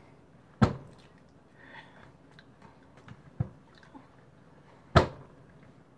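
Two loud, sharp knocks about four seconds apart, with a softer one between them and faint mouth clicks around them.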